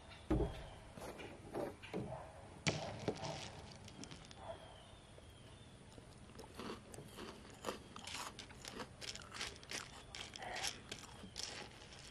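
A mouthful of crunchy chocolate cereal balls in milk being chewed, with irregular crunches coming thick and fast from about six seconds in. A single thump about half a second in and a few sharp clicks near three seconds, from handling the spoon and cup.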